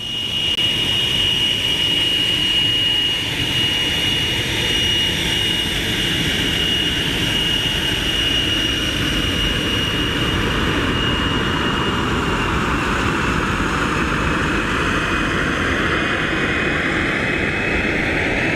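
Jet trainer's turbine engine running at low power while taxiing: a steady high whine over a dense rumble. After about twelve seconds the whine sags a little in pitch while a lower tone slowly rises.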